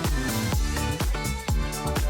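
Upbeat electronic dance music with a steady beat.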